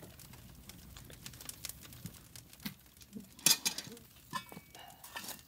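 Wood campfire crackling in a steel fire ring while a metal tool pokes and stirs the coals into a bed, with a louder patch of scraping and clinking about three and a half seconds in.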